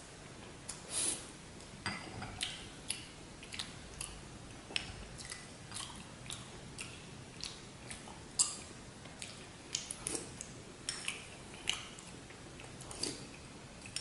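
Close-up eating sounds: chewing and wet mouth sounds, with a metal spoon clicking and scraping against porcelain bowls. The short sounds come irregularly, about two a second, a louder one a little past the middle.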